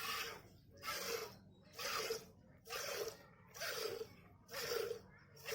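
Cow being milked by hand: streams of milk squirting into a metal pail in a steady rhythm, one hissing squirt about every second.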